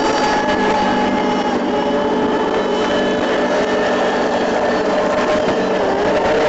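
Rescue boat's engine running steadily.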